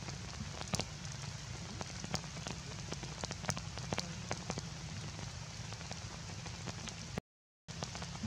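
Heavy rain falling steadily, with many sharp ticks of drops striking a hard surface close by. The sound cuts out completely for about half a second near the end.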